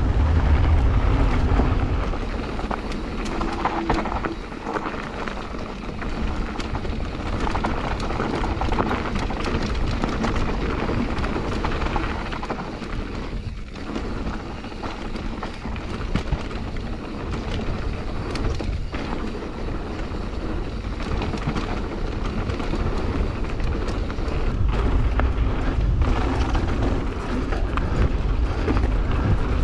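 Mountain bike descending a dirt trail, heard from an action camera on the rider: wind buffeting the microphone with a heavy low rumble, tyres running over dirt and gravel, and the bike clattering over bumps in many short knocks. The wind is strongest in the first couple of seconds and again near the end.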